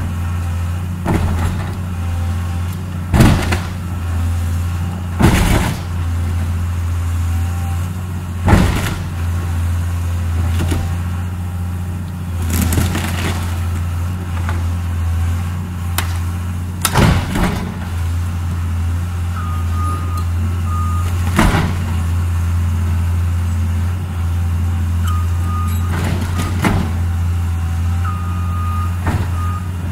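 Caterpillar tracked excavator's diesel engine running steadily under load as its bucket tears into a wooden barn, with repeated sharp cracks and crashes of breaking timber, the loudest a few seconds apart early on and more scattered later. A brief high beeping tone comes and goes several times in the second half.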